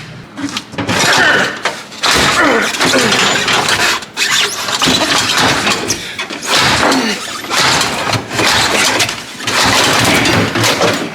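Stuck parts in the cargo area of a 1988 Oldsmobile Custom Cruiser wagon being yanked out by hand: loud scraping and creaking with squeals and knocks, in several long stretches.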